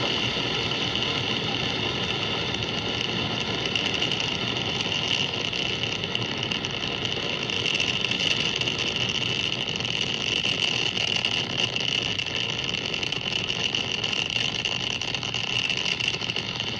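Falcon 9 rocket's nine Merlin first-stage engines firing during ascent just after liftoff, a steady unbroken rumble with no letup.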